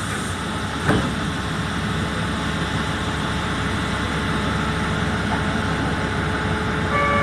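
Diesel locomotive engine idling steadily while the train stands still, with one short knock about a second in.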